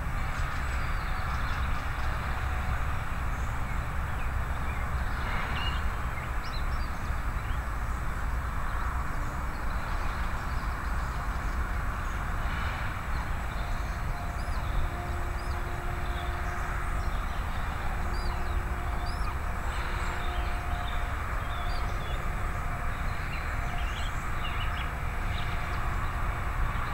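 Woodland ambience: a steady low outdoor rumble, with small birds chirping now and then. From about halfway in, a faint low hum comes and goes in stretches of a second or two.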